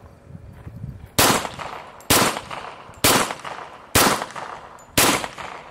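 Remington R1 1911 .45 ACP pistol fitted with a Gemtech GM-45 suppressor, firing five suppressed shots about a second apart, starting about a second in.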